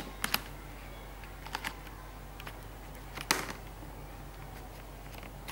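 A few scattered plastic clicks and knocks as the battery pack of an Asus Eee PC Seashell netbook is pushed and seated into its bay, the loudest click a little after three seconds in.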